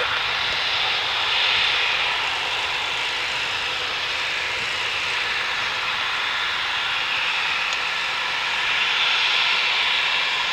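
Boeing 737 MAX 9's CFM LEAP-1B turbofans at takeoff thrust during the takeoff roll and lift-off, a steady rushing jet noise. It swells slightly about a second and a half in and again near the end.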